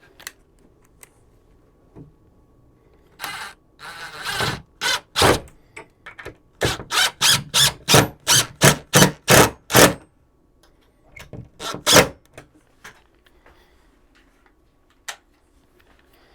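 A screw being driven by hand with a screwdriver into a wall stud through a shelf bracket: a run of short rasping turns, about three a second, then two more after a brief pause.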